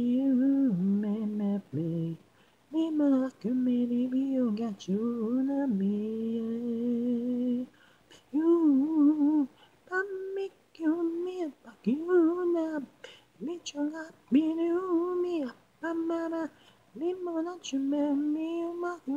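Isolated a cappella lead vocal, with no instruments: one voice singing phrases of held and bending notes, broken by short gaps for breath.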